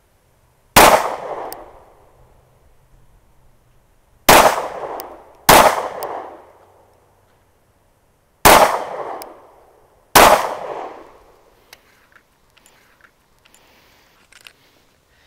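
Five 9mm shots from a Glock 43X subcompact pistol, unevenly spaced: one, then two in quick succession, then two more. Each shot trails off in a short echo.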